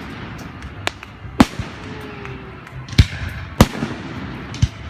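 Fireworks exploding overhead: five sharp bangs at irregular intervals, each followed by a short rumble. The loudest come about a second and a half in and around three and three and a half seconds in.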